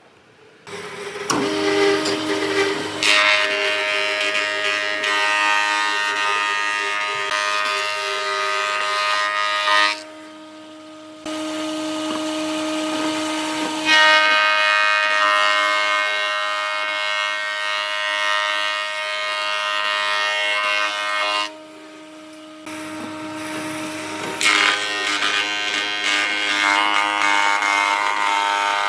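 An electric power tool running and working wood, with a steady motor whine. The sound drops away twice for about a second, once about ten seconds in and once about twenty-two seconds in, then picks up again.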